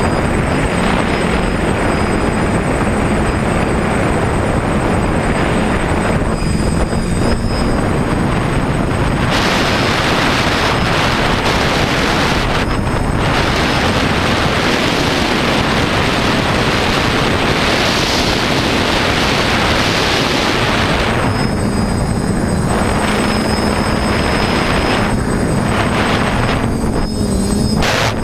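TBS Discovery quadcopter's electric motors and propellers running steadily in flight, a dense whirring with a steady hum whose pitch wavers slightly. A louder rushing hiss, like air rushing past, fills the middle stretch.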